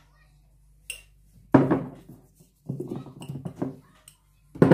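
A metal spoon and glassware knocking and clinking as the spoon and a glass jar of cornstarch are handled and set down: a loud knock about a second and a half in, a run of smaller rattling knocks, and another loud knock near the end.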